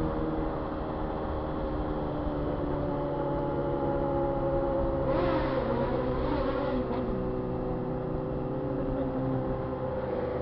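Motorcycle engines idling steadily, with a short swell in the sound about five seconds in that lasts a second or two.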